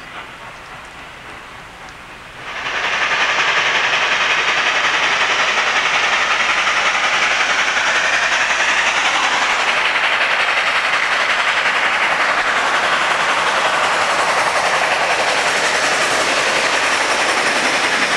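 C&O 4-8-4 steam locomotive No. 614 under way with a coal train: a moderate train sound for about two and a half seconds, then a sudden jump to a loud, steady rush of exhaust and running-gear noise as the engine works past close by.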